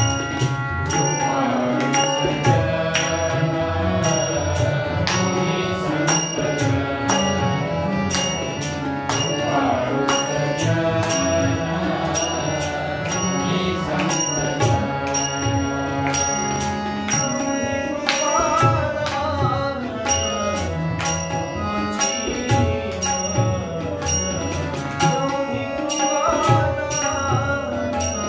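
Harmonium playing a melody, with voices singing along and hands clapping a steady beat.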